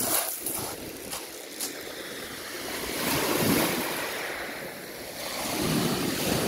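Small sea waves breaking and washing up a pebble beach. The surf swells twice, about three seconds in and again near the end.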